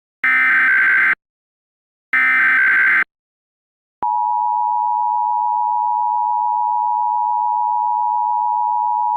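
Emergency Alert System SAME header data bursts, two short screeching digital bursts about a second apart. About four seconds in comes the EAS attention signal, a steady two-note tone held at an even level, announcing a new alert message.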